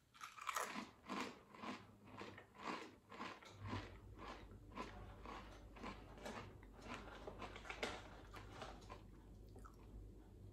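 A person biting into and chewing a straight-cut potato crisp, crunching about twice a second. The crunches are loudest in the first few seconds and fade as the crisp is chewed down.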